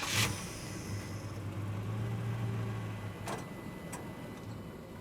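Redcat FiftyNine Impala RC car's electric motor running steadily with a low hum that swells slightly partway through, and two short clicks about three and four seconds in.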